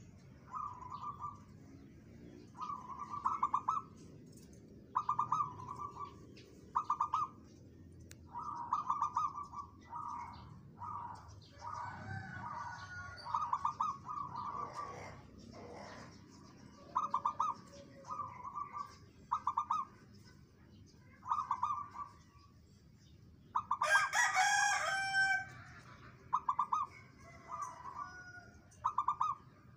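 Caged zebra dove (perkutut) cooing over and over, each coo a short rapid trill repeated every second or two. Near the end a louder, harsher call from another animal cuts across it.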